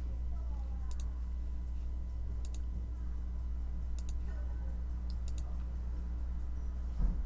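Computer keyboard keys clicking sparsely, in quick pairs about every second and a half, over a steady low room hum, with a soft thump near the end.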